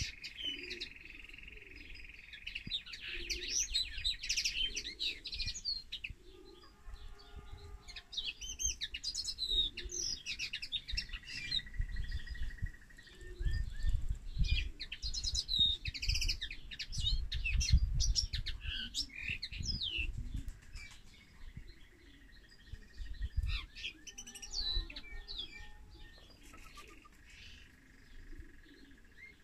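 Caged finch singing: bursts of fast twittering song phrases a few seconds apart, with steady high notes held between some of them. Low rumbling noise in the middle of the stretch.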